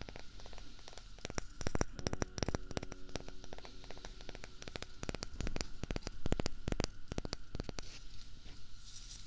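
Rapid, irregular clicks and taps, dozens of them, over a faint steady hum.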